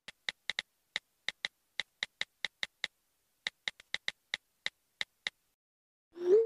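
iPhone keyboard clicks as a text message is typed: about twenty quick taps, with a pause around three seconds in. Near the end comes a short rising whoosh as the message is sent.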